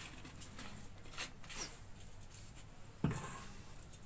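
Quiet kitchen handling sounds while ingredients are added to a pan: a couple of faint clicks, then a single sharper knock about three seconds in.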